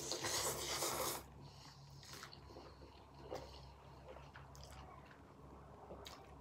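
Spicy ramen noodles slurped loudly for about a second, then quieter chewing and a few short slurps.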